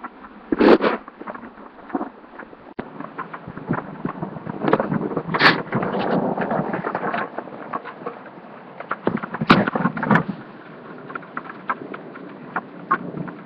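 Thunderstorm rain and wind on a laptop's built-in microphone: a steady hiss of rain with many sharp taps of drops striking close to the mic. Loud bursts come about a second in, around five seconds in, and twice around nine to ten seconds in.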